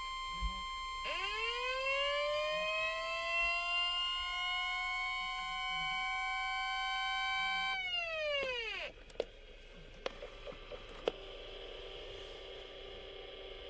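NOAA Weather Radio's 1050 Hz warning alarm tone sounding steadily for the required weekly test. About a second in, the Reecom weather radio receiver's siren joins it, winding up and holding. Both stop about eight seconds in, the siren winding down, and a few clicks follow over a faint hum.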